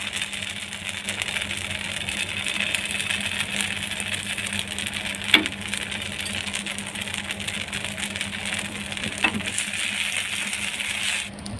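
Suji (semolina) pancake batter sizzling and crackling in oil on a hot non-stick tawa, a steady crackly sizzle broken by a couple of sharp clicks. It cuts off abruptly near the end.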